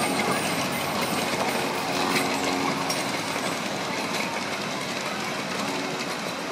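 Miniature ride-on train passing, its wheels rumbling and clattering along the track with fine clicks throughout, easing slightly as it moves away.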